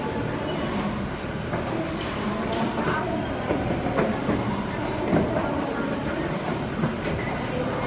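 Mesh conveyor belt of a textile printing machine running steadily, a continuous mechanical rumble with a few sharp clicks and knocks.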